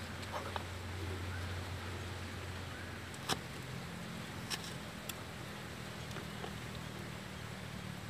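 A low steady hum, like a distant motor, with a few light sharp clicks of a plastic bottle cap being pressed through potato slices against a wooden chopping board.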